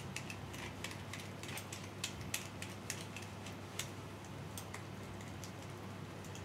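Vegetable peeler shaving a block of Parmesan, making faint irregular scraping clicks, over a low steady hum.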